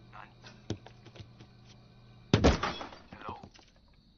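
Cartoon sound effects: a few faint clicks over a low steady hum, then one sudden loud thud with a crashing ring-out a little past two seconds in.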